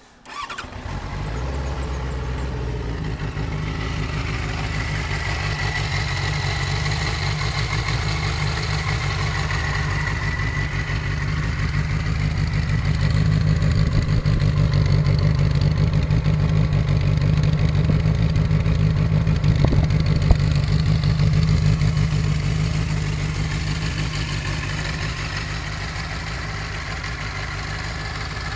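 Benelli TNT 600 motorcycle's inline-four engine on its stock exhaust starting about half a second in, then idling steadily. It grows louder through the middle and settles back down near the end.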